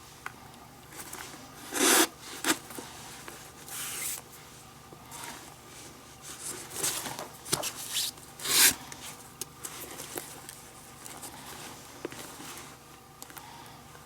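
Leather lace being pulled through the lacing holes of a Rawlings Gamer baseball glove: a series of short rubbing swishes of leather on leather, the loudest about two seconds in and again a little past the middle.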